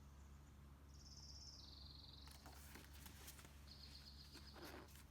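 Faint backyard birdsong: two high, even trills, the first about a second in stepping down in pitch, the second near the end. Soft scattered clicks and rustles are heard over a quiet low hum.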